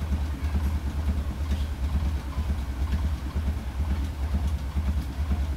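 A low, steady mechanical hum that flickers rapidly in level, with faint soft ticks over it.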